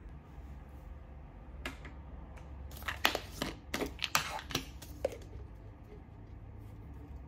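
Plastic supplement bottle being opened: a run of sharp clicks and rattles as the screw cap is twisted off and the bottle of gummies is handled, over a low steady hum.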